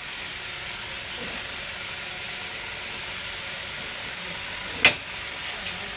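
Steady hiss of workshop background noise, with one sharp knock about five seconds in as the removed suspension parts, an upper control arm and CV drive shaft, are handled.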